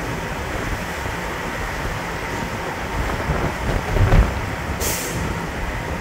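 Ferry docking in a stiff breeze: a steady rushing rumble of wind and ship machinery, with a low thump about four seconds in and a brief high hiss just after.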